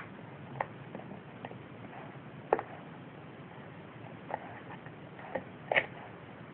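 Irregular soft clicks and smacks, a few seconds apart at most, the loudest about halfway through and a quick double one near the end: a baby's mouth and hands working a plastic baby bottle.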